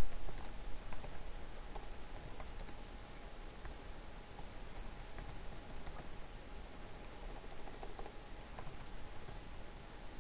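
Computer keyboard being typed on: irregular light key clicks over a steady background hiss.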